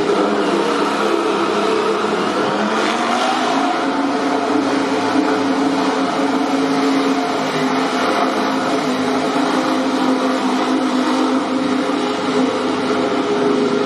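MotoGP racing motorcycle engine running steadily, its pitch holding nearly level throughout.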